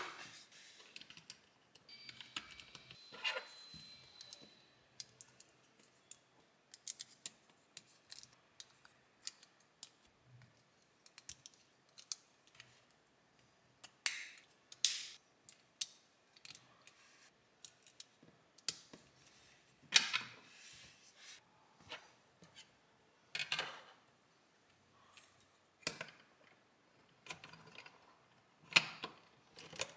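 LEGO plastic bricks and plates being handled and pressed together: irregular clicks and clatter, with a few louder snaps as parts seat.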